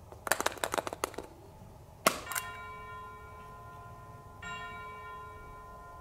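Plastic surprise egg clicking as it is worked open, then a single sharp snap. A bell-like chime starts ringing right after the snap, and a second chime joins about two seconds later; both ring on steadily.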